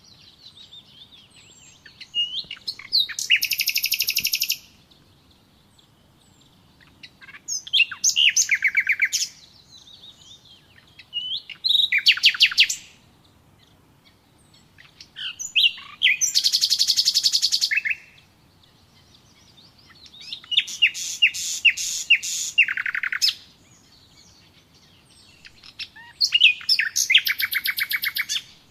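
A songbird singing loud, rapid trilled phrases of a second or two each, repeated about every four to five seconds, with softer twittering between them.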